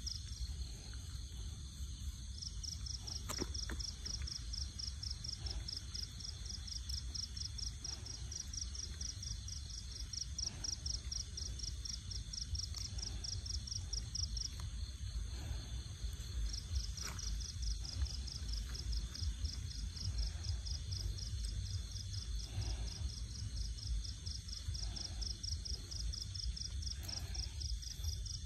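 An insect trilling in a rapid, even pulse that stops briefly twice, over a steady low rumble.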